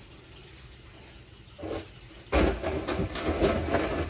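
Rinse water and suds sloshing inside a plastic drum as it is shaken on its side, with knocks from the drum. The sloshing starts loudly a little past two seconds in, after a quiet start and one short slosh.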